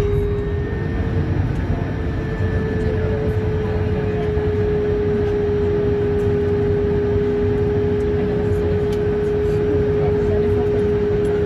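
Airbus A220-300 cabin noise while taxiing: the steady low rumble of its Pratt & Whitney PW1500G geared turbofans at idle, with one constant droning tone over it.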